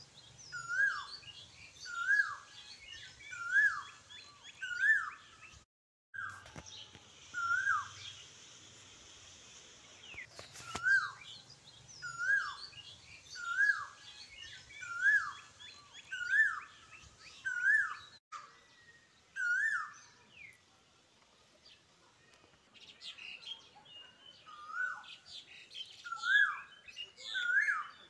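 A bird repeating the same short chirp, rising then dropping in pitch, about once every second and a half, with fainter twittering from other small birds higher up.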